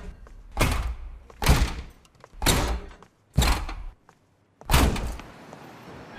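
Five heavy thumps, roughly a second apart, each dying away quickly.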